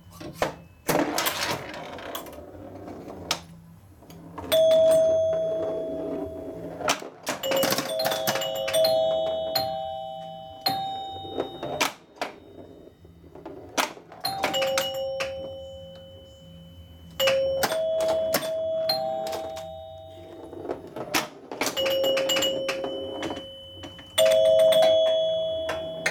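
1978 Gottlieb Sinbad pinball machine in play: its chime unit rings in repeated clusters of two or three tones that fade slowly as points are scored. Sharp clicks and knocks from the playfield sound between and under the chimes.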